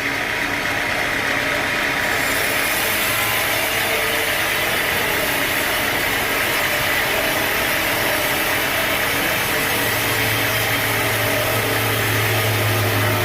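Sawmill machinery running steadily with a constant engine-like mechanical noise. A low steady hum joins about ten seconds in.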